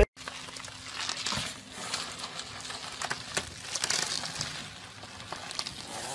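Plastic bubble wrap crinkling and rustling as a small chihuahua wriggles through a tube of it, with many small irregular crackles.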